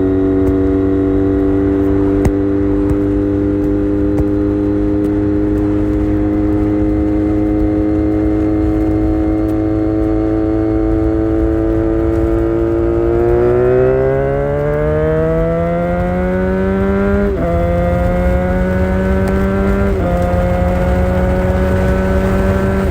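Honda VFR400R's 400cc V4 engine under way, heard from a phone in the rider's backpack. It holds a steady, slowly sagging note, then revs up from about 13 s in, with upshifts dropping the pitch about 17 s and 20 s in.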